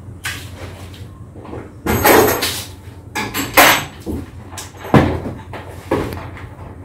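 A series of irregular knocks and clatters, about six, with the loudest around two seconds in and near the middle, between them only low background noise.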